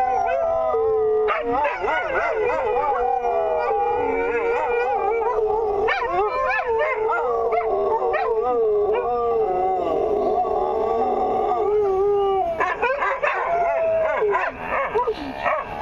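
Several dogs howling together, their overlapping howls held at different pitches and wavering against one another, with brief breaks as they draw breath and some shorter yips near the end.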